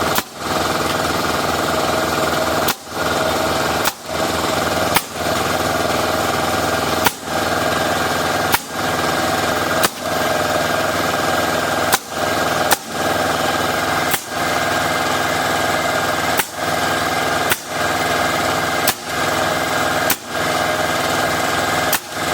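A steady motor runs loudly throughout. Over it, about fifteen sharp bangs come roughly once every second or so, like nails being driven into framing lumber.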